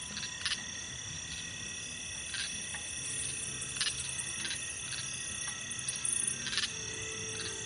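Night insect chorus: crickets and other insects chirring steadily at several high pitches. Short sharp clicks or calls break in at irregular intervals, about once a second.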